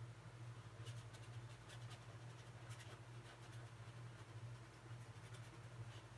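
Faint scratchy dabs and strokes of a paintbrush on canvas, coming in short irregular clusters, over a steady low hum.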